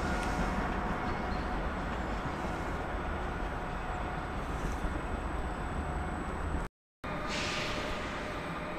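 A train running through a railway station: a steady rumble with faint whining tones, broken by a brief gap of silence about two-thirds in, after which a short hiss sounds.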